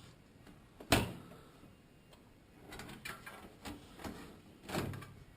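A sharp knock about a second in and a softer one near the end, with light clicks and scraping between: a motherboard being handled and set into a computer case while it is lined up on its mounting holes.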